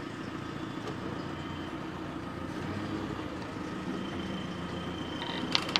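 Telehandler engine running steadily while carrying a heavy load. A thin high whine joins about four seconds in, and there is a sharp click near the end.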